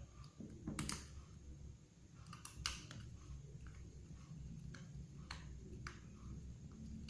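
Scattered light clicks and taps from a smartphone and small tools being handled during a repair, about half a dozen separate clicks over a low steady hum.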